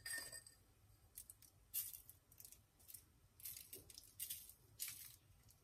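Faint, short rustling sprinkles, about half a dozen spread over a few seconds, of salt being sprinkled over cut raw potatoes for roasting.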